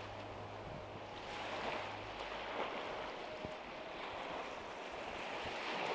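Small sea waves washing onto a sandy beach, the hiss swelling and easing every couple of seconds. A low steady hum underneath stops about two seconds in.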